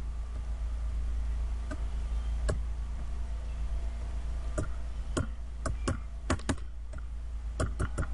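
Scattered sharp clicking at a computer, a few clicks at first and then a quicker run of them in the second half, over a steady low electrical hum.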